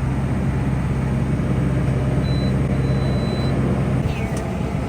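Tractor engine running steadily, a constant low drone, while pulling a Massey Ferguson RB 4160V round baler through wet oat windrows.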